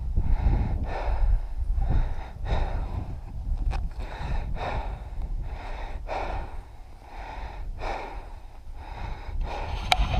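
A player's heavy breathing close to the microphone, panting in and out about every half second, over low rumbling movement noise. A single sharp click comes shortly before the end.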